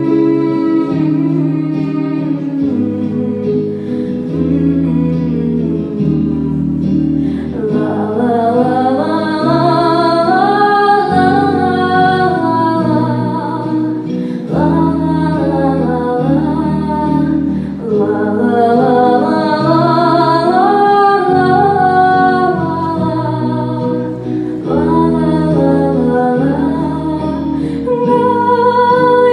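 A song with instrumental accompaniment: steady bass notes changing every second or two, with a plucked-string sound. A female voice sings the melody from about eight seconds in.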